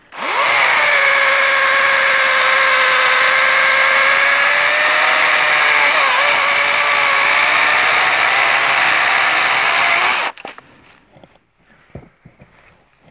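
DeWalt cordless battery chainsaw cutting through a bush honeysuckle stump near the ground: a steady high electric-motor whine that dips briefly about six seconds in and stops suddenly after about ten seconds. The chain is somewhat dulled and cuts the thicker wood more slowly than it should.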